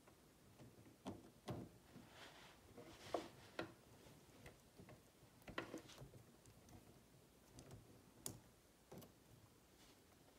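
Faint, irregular small clicks and taps of a brass portal housing being handled and seated onto an RC crawler's axle end and stub axle, about nine scattered clicks with the loudest near the middle.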